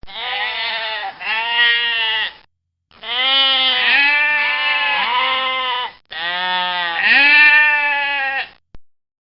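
A goat bleating: three or four long, quavering bleats, each lasting one to three seconds with short gaps between them.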